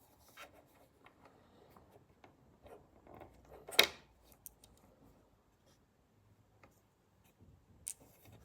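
Faint handling noise: small clicks and rubbing, with a sharp click about four seconds in and another near the end.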